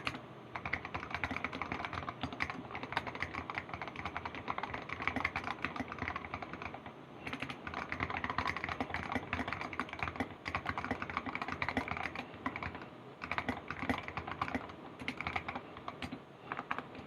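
Typing on an Anne Pro 60% mechanical keyboard fitted with Filco double-shot keycaps: quick, steady runs of key clicks and clacks, broken by short pauses about seven seconds in, around thirteen seconds in and near the end.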